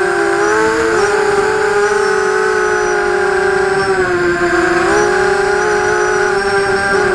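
Vortex FPV racing quadcopter's brushless motors and propellers whining loud and steady, heard close up through the onboard camera. The pitch of the several close tones dips and rises with the throttle about a second in and again about four to five seconds in.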